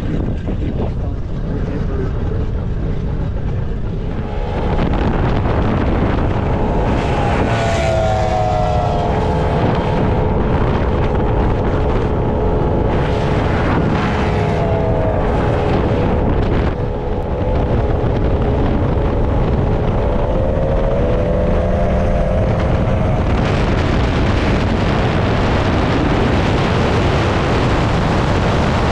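Outboard-powered high-performance speedboats running flat out, heard from a boat running alongside. The engines give a steady high whine that drifts slowly in pitch, rising in strength about four seconds in, over heavy wind buffeting the microphone.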